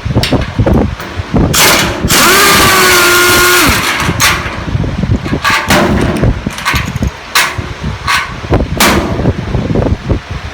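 Power impact wrench hammering in a series of short bursts, with one longer burst of about a second and a half around two seconds in, loosening the bolts of old tool-chest casters. A fan runs steadily underneath.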